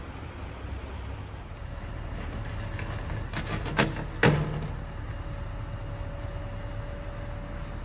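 Low steady rumble of the idling Scania R580 tractor unit's V8 diesel, with three sharp metal clanks a little before halfway. A faint steady whine follows and holds to the end.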